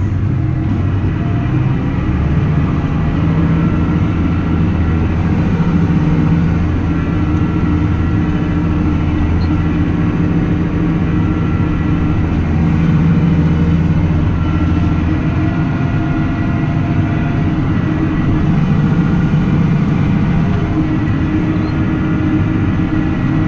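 Farm tractor engine running at a steady speed: a loud, even drone that holds throughout.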